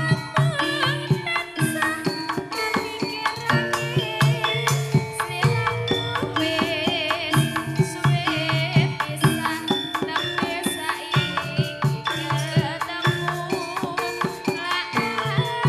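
Live Javanese jaranan music: rapid hand-drum strokes under a wavering melodic line, played loud and without a break.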